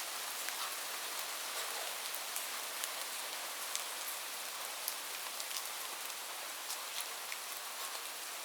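Steady rain: a dense, even hiss of falling rain with many individual drops ticking sharply through it.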